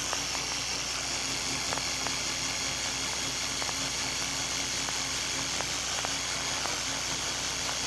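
Film-projector-style sound effect: a steady mechanical whirr under a strong high hiss, with faint irregular ticks.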